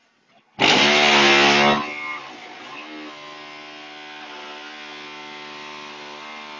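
Hydraulic concrete block-making machine: about half a second in, a loud buzzing burst lasting about a second, which then settles into a steady, even hum as the machine runs.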